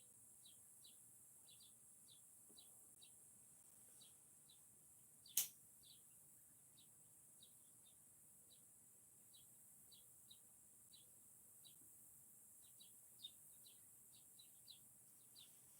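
Faint, repeated short chirps of a small bird, roughly two a second, over a steady high hiss. A single sharp click, the loudest sound, comes about five seconds in.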